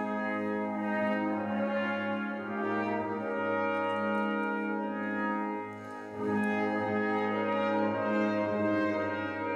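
Brass ensemble playing slow, sustained chords in a church, with a short break between phrases about six seconds in before it plays on.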